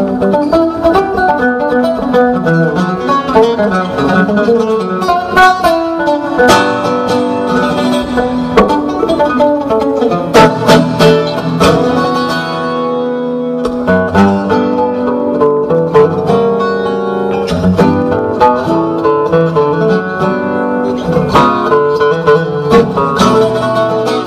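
Two acoustic guitars playing a jazz duet: quick plucked melodic runs over chords. About halfway through, the playing eases into a quieter, held passage, then picks back up.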